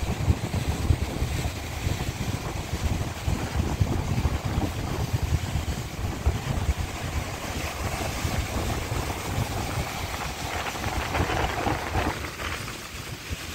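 Wind buffeting the microphone in a low, fluttering rumble, over the steady wash of ocean surf breaking on rocks.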